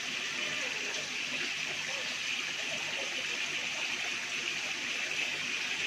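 Steady splashing rush of water pouring from the recirculation system's inflow pipe into a fish tank.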